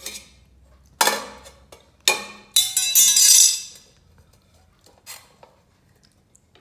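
Metal utensil knocking and scraping inside a metal cooking pot: sharp ringing clanks about a second apart, then a longer, louder ringing scrape around three seconds in, and a fainter knock near the end.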